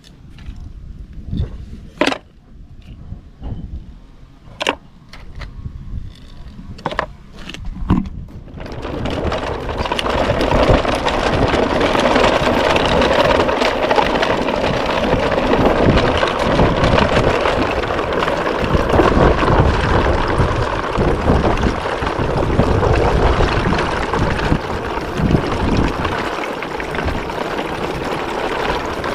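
Plastic toy vehicles clicking and knocking as they are handled, then from about eight seconds in a long, steady rumbling noise of toy truck wheels rolling over a rough surface.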